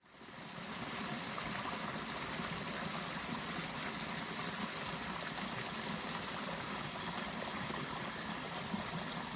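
Steady rushing of running water, like a stream, fading in over the first half-second and holding even.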